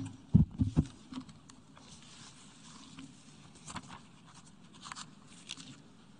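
Handling noise at a lectern picked up by the podium microphones: a few heavy thumps in the first second, then faint paper rustling and small clicks as papers are handled and a face mask is taken off.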